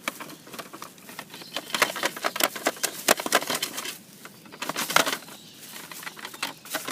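Soiled newspaper bedding and kitty litter being emptied out of a mouse cage: a dense crackling rustle and pattering, with two busier spells, one about two seconds in and another around five seconds.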